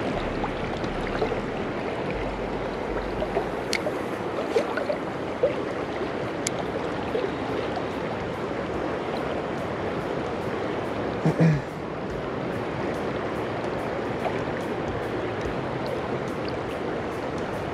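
Steady rushing of river water. A few sharp clicks come in the first seconds, and a brief knock comes about eleven seconds in.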